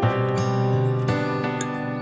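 Gentle instrumental background music with plucked strings, such as acoustic guitar.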